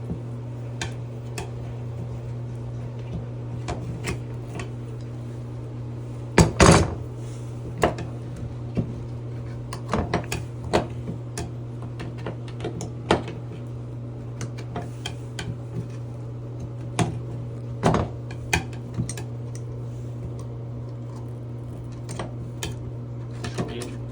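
A steady low hum with scattered clinks, clacks and knocks of hard objects being handled. The loudest knocks come about six and a half seconds in.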